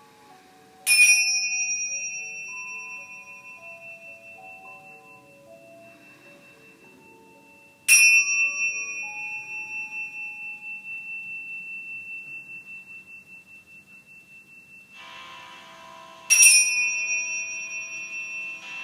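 Tingsha cymbals struck together three times, several seconds apart. Each strike is a bright clash that rings on in a high, wavering tone and slowly fades.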